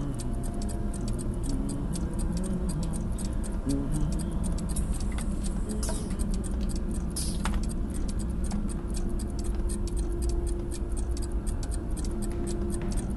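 A clock ticking steadily and fast over a low hum.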